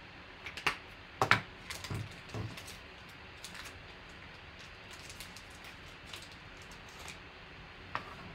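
Handling noise: a scattered series of short clicks and knocks of small objects being handled on a table. They come thickest in the first couple of seconds, the loudest about a second in, then thin to occasional light taps, with one more near the end.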